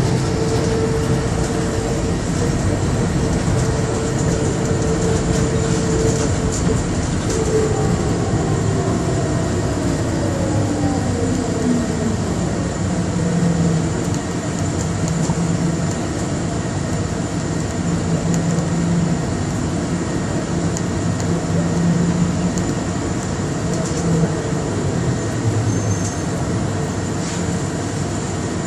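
Bombardier Innovia APM 100 rubber-tyred people mover running, heard from inside the car. A steady motor whine falls in pitch between about 7 and 12 seconds in as the train slows, over a constant rolling rumble.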